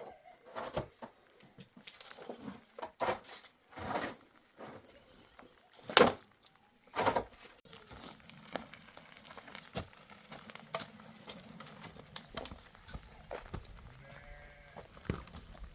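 Sheep or goats bleating in short, harsh calls, about half a dozen in the first seven seconds, the loudest about six seconds in, then quieter.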